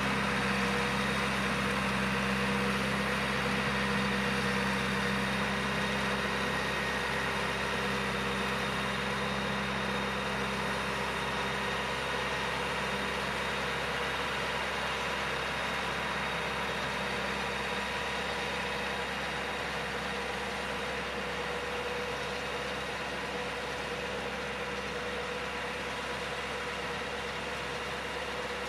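Farm tractor engine running steadily under load as it pulls a soil-working implement across a field, growing slowly fainter as it moves away.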